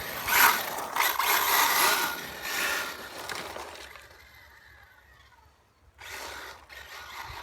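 A 1/8-scale electric RC rally car running on a wet road: several bursts of throttle with a hissing, spraying sound that fade away as the car drives off, then two shorter bursts near the end.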